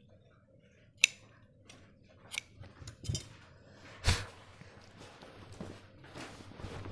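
Small tailor's scissors snipping open buttonhole slits in a wool jacket front: a sharp snip about a second in, then several lighter snips. A louder knock about four seconds in as the metal shears are set down on the cutting table, followed by soft rustling of the cloth.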